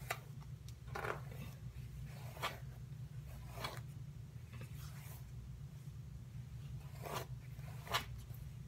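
Short rustling, scraping strokes of long hair being worked and styled, about seven in all at uneven intervals, over a steady low hum.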